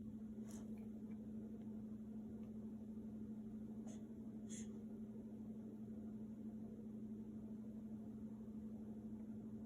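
Steady low background hum, with three faint short ticks about half a second, four seconds and four and a half seconds in.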